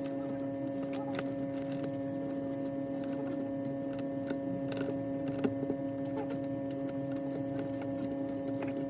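Steady electrical hum from a running machine, with scattered small clicks and taps of tools during a phone repair.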